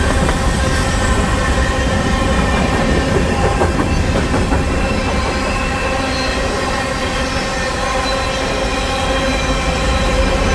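CP Rail freight train of covered hopper cars rolling steadily past, a loud continuous rumble of wheels on rails with several steady high tones over it.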